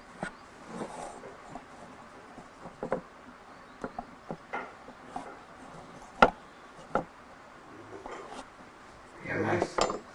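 Irregular taps and knocks of wooden parts and tools being handled, with a sharp knock about six seconds in and another about a second later. A short stretch of voice comes near the end.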